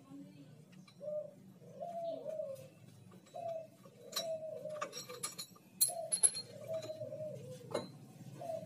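A dove cooing over and over in short, wavering phrases. Around the middle and again near the end come several sharp metallic clinks, the loudest about six seconds in, as a steel puller tool is fitted to the engine's magneto rotor.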